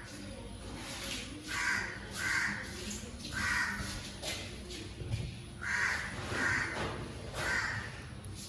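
A crow cawing repeatedly: about six harsh caws at uneven intervals, some in quick pairs.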